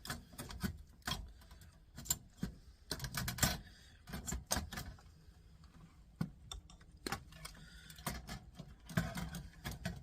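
Little wires being pulled off a circuit board by hand and dropped onto a pile: irregular light clicks and rattles, with a few sharper knocks.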